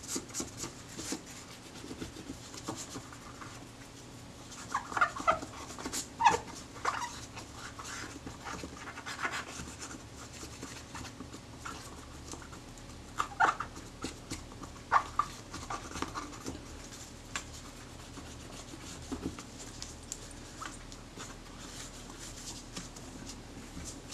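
Quiet rubbing and handling as a Kodak Retina IIIS metal base plate is cleaned of solvent-softened adhesive with a cotton bud, with scattered small clicks and a few short squeaks.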